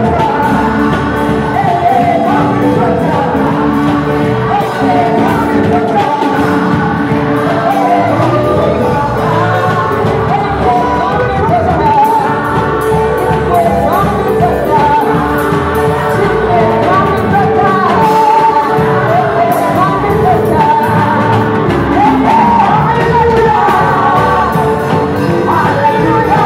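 Live gospel praise singing by a group of singers with a lead voice, backed by an amplified band of drum kit, keyboard and electric guitars, played loud and steady throughout.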